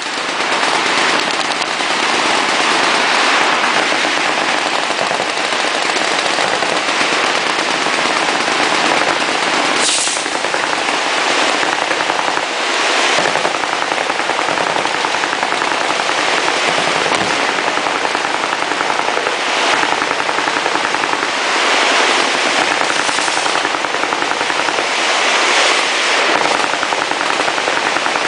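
Sustained automatic gunfire from several machine guns firing at once: a dense, unbroken rattle of rapid shots, with louder bursts every few seconds.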